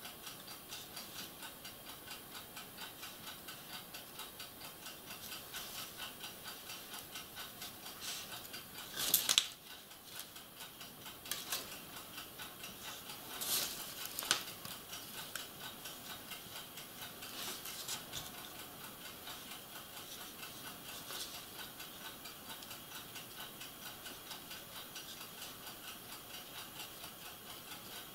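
Steady ticking of a clock, with a few brief clinks and scrapes of a paintbrush dipped and tapped in a small cup, the loudest about nine seconds in.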